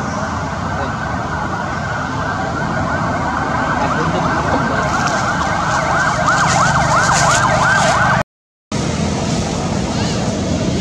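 A loud chorus of cicadas in the trees: many overlapping wailing calls rise and fall in pitch, growing denser toward the middle. It breaks off completely for about half a second some eight seconds in, then gives way to a quieter, less patterned hum.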